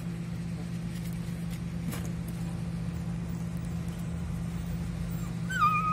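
Engine idling with a steady low hum. Near the end a puppy lets out a short, high whine.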